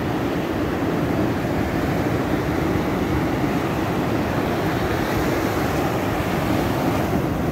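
Ocean surf breaking on a sandy beach in a rough sea: a steady, low rushing of waves.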